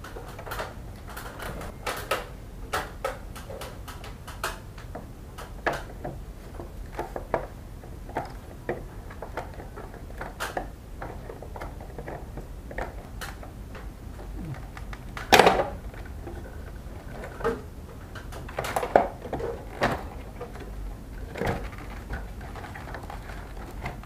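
Irregular clicks and knocks of tools and parts being handled while working on a split air conditioner's indoor unit. There is one louder knock about 15 seconds in and a cluster of knocks around 19 seconds.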